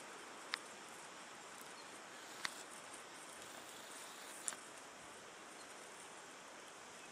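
Three short, sharp clicks about two seconds apart over a faint, steady outdoor hiss: twigs and leaf litter snapping as a short-beaked echidna forages.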